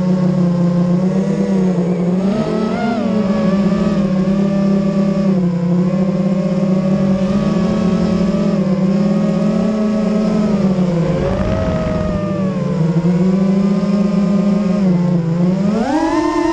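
FPV racing quadcopter's brushless motors and propellers whining, heard from the camera on the quad. The pitch rises and falls with the throttle. About eleven seconds in it sags with a rush of air noise, and near the end it climbs sharply.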